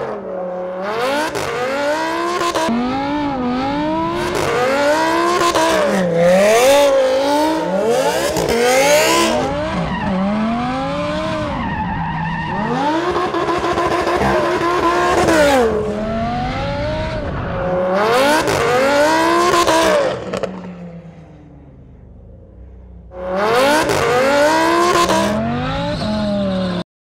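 Lamborghini Huracán V10 with long-tube equal-length headers revving hard and repeatedly rising and falling as the car drifts, with tyres squealing. Near the end it drops to a quieter low note for a couple of seconds, then revs up again before the sound cuts off.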